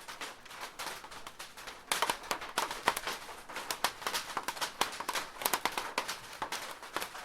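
Light rain falling on a plastic roof: a dense, irregular scatter of sharp drop taps, growing denser and louder about two seconds in.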